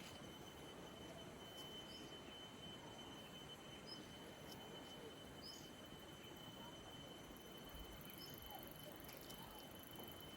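Faint rural outdoor ambience: a low steady hiss with a thin steady high tone and a few short, high chirps, one about four seconds in, one in the middle and one near the end.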